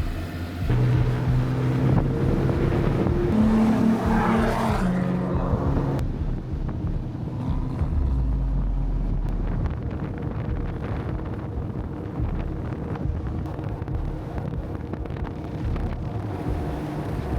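4x4 engine running, with a swell about four to five seconds in, then settling to a low steady rumble.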